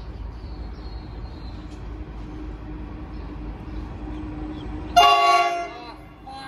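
Freight locomotive's horn, one short blast about five seconds in, over a low steady rumble.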